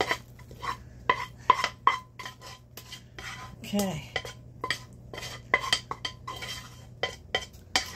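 A metal spoon scrapes and clinks against a saucepan as thick hot caramel is poured out onto popcorn in a roasting pan. The sound is a run of irregular metallic clinks and scrapes, several a second, and some ring briefly.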